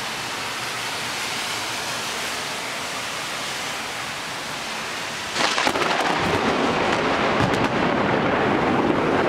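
Thunderstorm with heavy rain, a steady hiss. About five seconds in the sound turns suddenly louder and fuller, with a low rumble that holds on.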